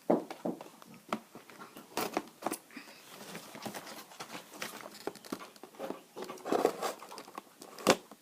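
Toy blaster packaging being handled while twist ties are worked loose: irregular rustling and crinkling of card and plastic with small knocks, and one sharp knock near the end.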